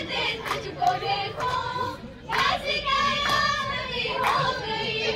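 Schoolgirls singing a qawwali together, with rhythmic hand-clapping in time. The singing breaks off briefly about two seconds in, then resumes.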